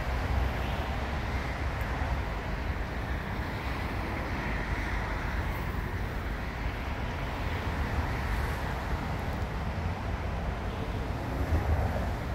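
Steady outdoor noise of wind on the microphone over traffic, a constant low rumble with no distinct events.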